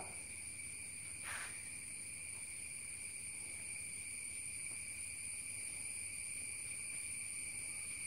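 Insects chirring steadily in the background, a high-pitched drone, with one brief soft swish about a second in.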